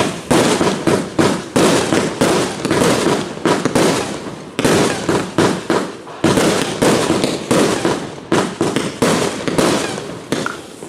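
J-Fireworks Construction firework compound firing a fast, continuous series of shots, about three a second, each a sharp bang with a short decay. The shots thin out near the end.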